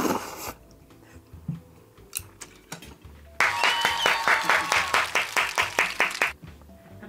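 A mouthful of soba noodles being slurped, ending about half a second in. Then, about three and a half seconds in, hands clapping rapidly and evenly, about four or five claps a second, for about three seconds.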